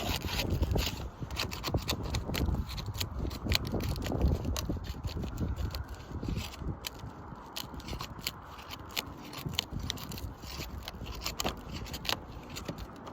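Scraping and rapid tapping of a tool being worked under brittle roof shingles to lift them, with many sharp clicks, busier in the first half, over a low rumble.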